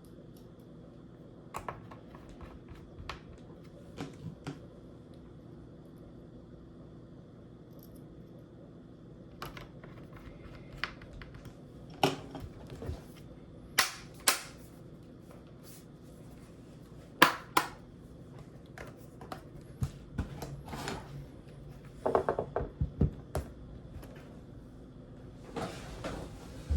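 Scattered sharp clicks and light taps of small tools and parts being handled while a MacBook Pro is worked on, irregular and loudest in the middle, with a short rustle near the end over a faint steady high whine.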